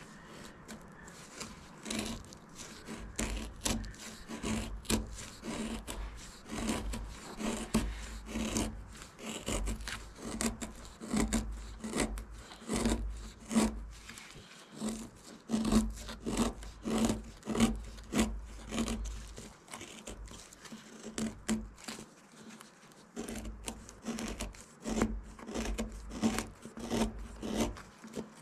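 Knife blade shaving and carving wood in repeated scraping strokes, about one to two a second, with short pauses between runs.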